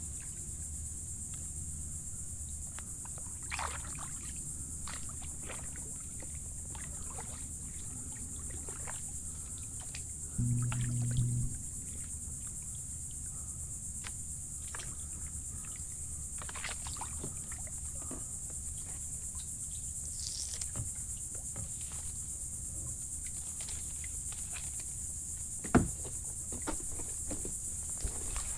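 Steady high-pitched buzz of insects, with scattered light splashes and clicks from a kayak paddle working the water. A brief low hum sounds about ten seconds in, and there is a single sharp knock near the end.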